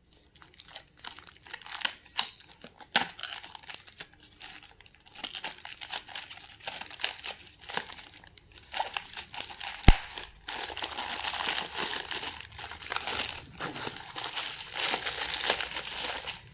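Packing wrap crinkling and tearing as a bundle of glass bangles is unwrapped by hand, with one sharp knock a little past halfway.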